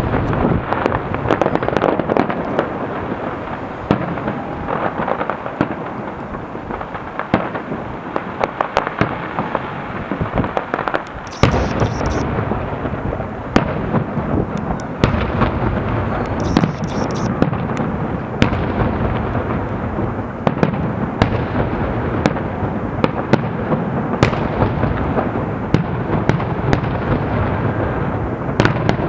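Fireworks salute: a continuous barrage of shell bursts, bangs and crackle, growing louder and denser a little before halfway.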